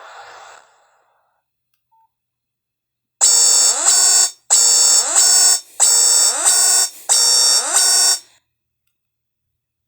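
Nokia 5130 XpressMusic's loudspeaker playing an electronic ringtone: four identical loud beeping phrases of about a second each, every phrase with a rising sweep. The phrases start about three seconds in and stop a second and a half before the end, just after the previous tone fades out.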